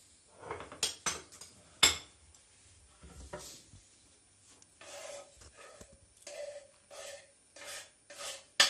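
Grated kaşar cheese being scraped and brushed off a wooden cutting board into a bowl. There are a few sharp knocks of the board early on, then a run of rasping scraping strokes, and a loud knock near the end.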